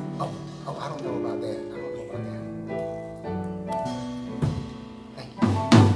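Music of slow, held chords that change every second or so. Loud drum hits come in about four and a half seconds in, and the strongest fall near the end.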